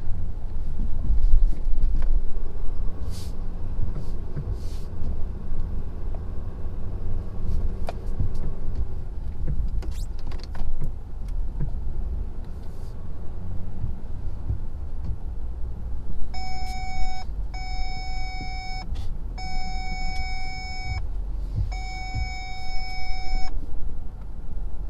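Low, steady rumble of the 2017 Ford F-250's Power Stroke V8 diesel working the truck through deep snow. In the last third, four evenly held electronic chime tones, each about a second long, sound from the truck.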